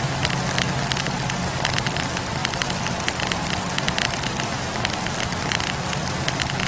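Wood campfire burning, with many small irregular crackles and pops of the burning logs over a steady low hum.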